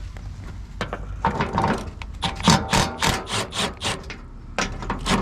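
Hand ratchet wrench clicking in quick repeated strokes, about three or four a second, as a part is unbolted, pausing briefly and starting again near the end.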